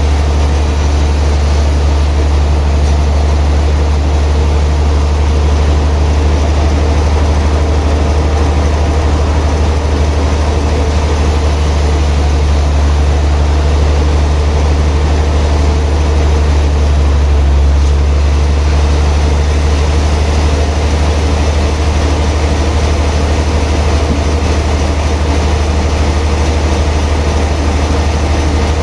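Heavy sawmill machinery running with a steady, loud, deep hum and no cutting strokes or knocks.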